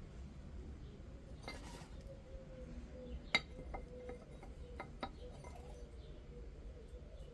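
Light metallic clinks of hand tools and bolts being handled, about half a dozen scattered knocks with the sharpest one about halfway through.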